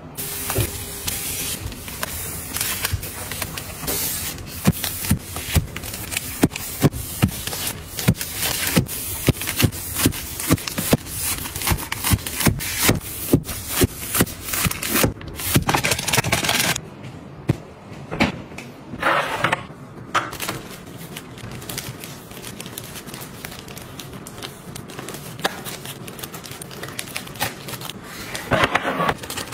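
Close-up handling noise of small objects: many quick clicks and taps over rustling, dense for the first half, then sparser with a few short rustles near the end.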